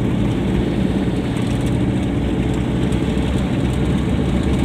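Steady rumble of road and engine noise from a moving vehicle, heard from inside the cabin.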